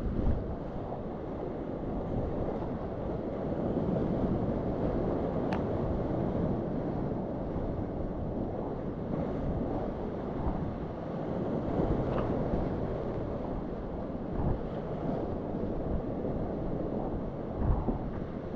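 Glacier-fed alpine river at flood stage rushing over rapids around a whitewater kayak, a continuous dense roar of churning water, with wind buffeting the microphone.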